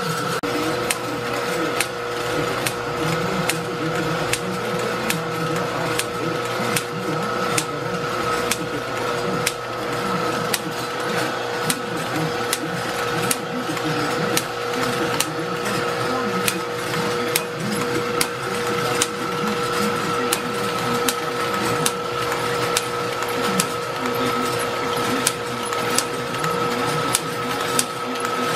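Homemade envelope-gluing machine running: a steady motor whine with two held tones, and its mechanism clicking at an even rhythm.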